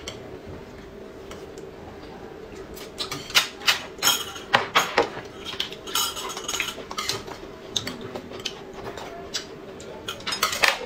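Chopsticks and a spoon clinking and tapping against plates and a glass, in a run of sharp clicks from about three seconds in and again near the end, over a faint steady hum.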